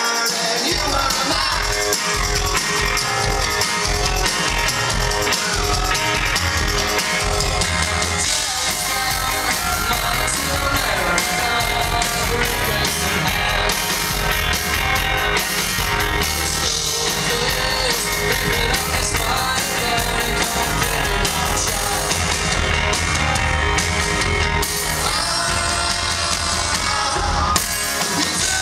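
Live rock band playing loud: electric guitar, bass guitar and drums, with a singer.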